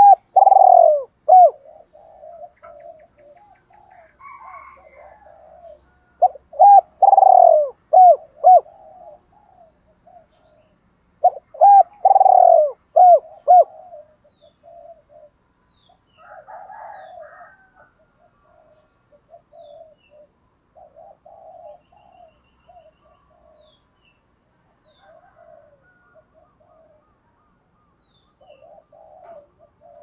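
Spotted dove cooing. Three loud phrases of repeated arching coos come in the first half, followed by softer, fainter cooing. It is the call a decoy dove uses to draw in wild doves.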